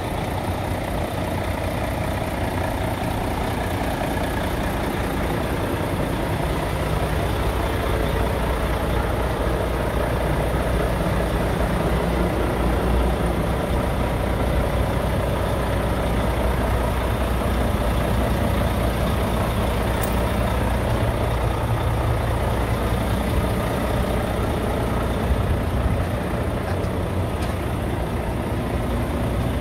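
Scania R tractor unit's diesel engine idling steadily, with a brief click about two-thirds of the way through.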